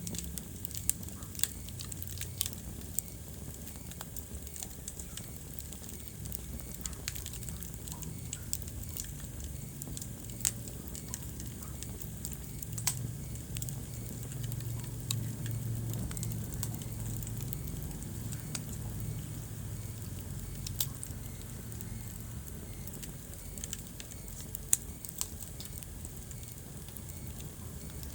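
Wood fire burning in a fireplace: a steady low rumble of flames with irregular crackles and scattered sharp pops, one of the loudest pops coming near the end.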